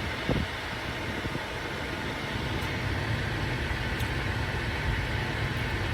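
Steady hum of a parked car idling with its air-conditioning fan running, with a brief low knock just after the start.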